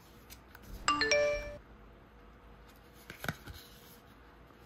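A two-note chime, ding-dong, ringing briefly and fading, followed by a few faint light clicks about three seconds in.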